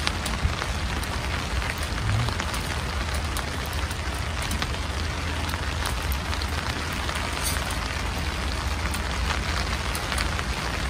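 Rain pattering steadily on the tipi tent's fabric, many small drop ticks over an even hiss, with a steady low rumble underneath.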